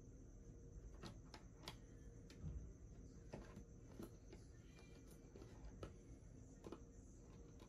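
Near silence: quiet room tone with a faint steady hum and a few faint, scattered ticks.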